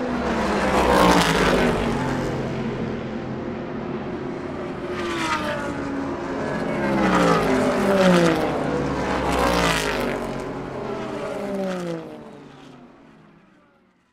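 Race cars speeding past one after another, each engine's pitch dropping as it goes by. The sound fades out near the end.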